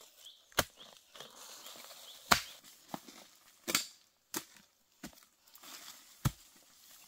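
Hoe blade chopping into soil while digging out a bamboo shoot: about six sharp, irregular strikes, the loudest about two seconds in and again near the end.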